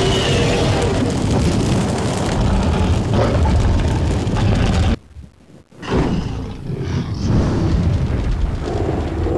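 Dragon-themed lightsaber sound-font effects: a loud, rumbling, fire-like roar that cuts off suddenly about five seconds in. After a short gap a new, quieter rumbling effect starts.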